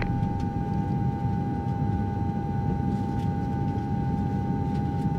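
Steady engine rumble with a constant high whine riding over it.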